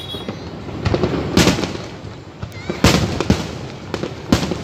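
Fireworks display: aerial shells bursting in several loud bangs, about four strong ones spread unevenly, over a continuous crackle of smaller reports.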